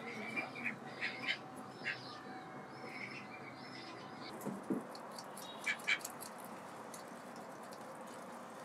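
White domestic ducks giving several short calls in the first few seconds, then a few sharp clicks about five to six seconds in.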